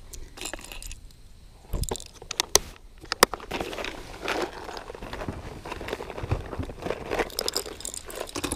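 Clear plastic tackle box being handled while a lure is picked out: a few sharp plastic clicks about two to three seconds in, then continuous rustling and rattling handling noise.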